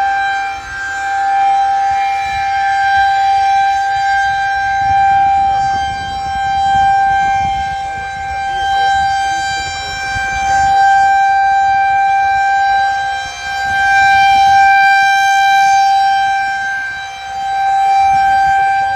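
Federal Signal 2001-130 rotating outdoor warning siren sounding a steady, unwavering tone for a tornado warning. Its loudness swells and fades every few seconds as the rotating head sweeps past.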